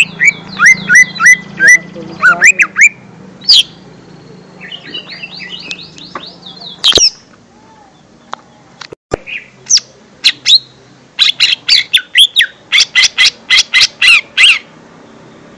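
Lesser green leafbird (cucak ijo mini) singing in runs of sharp chirps and quick whistled up-sweeps. A sparser stretch in the middle gives way to a fast string of chirps about two-thirds through.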